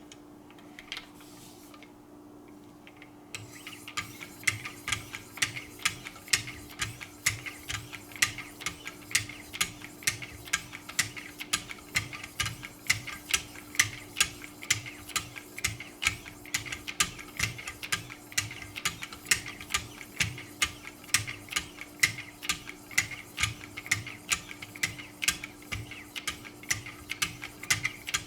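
Fine 3000-grit stones of a Wicked Edge guided sharpening system stroking along a knife edge in quick, even strokes, about three or four a second, starting a few seconds in; at this grit the edge is being polished. A steady low hum runs underneath.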